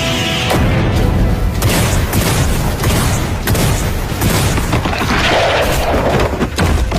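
Animated fight sound effects: a dense, continuous barrage of booming blasts and impacts over music, with a swelling rush about five seconds in.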